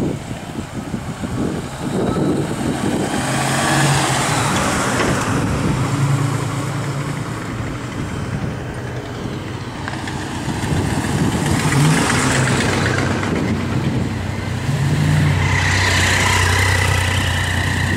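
Classic cars driving past one after another, engines running, each swelling and fading as it goes by, about three passes in all. A motorcycle is among the vehicles near the end.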